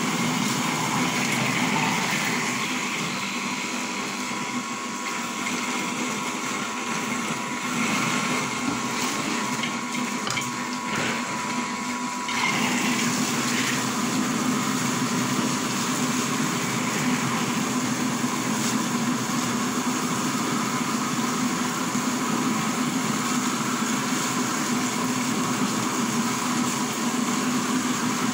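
Electric soybean milk grinder running steadily, its motor humming as it grinds soaked soybeans while water is poured in, with liquid rushing through. The sound grows a little louder about twelve seconds in.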